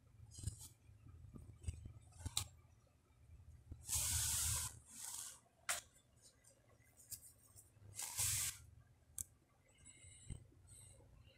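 Two short hissing bursts about four seconds apart, with a few light clicks between them.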